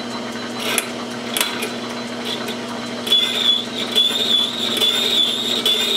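Metal lathe running slowly in back gear with a steady hum, its tool bit cutting into a steel rifle barrel. There are a couple of sharp ticks, then from about halfway a high, wavering squeal from the bit under a heavy cut.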